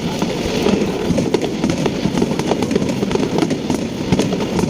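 Fireworks crackling: a dense run of rapid small pops and crackles over a steady low background din.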